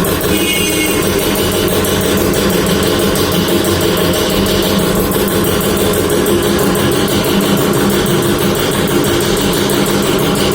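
Background music over the steady running of a freshly serviced air compressor.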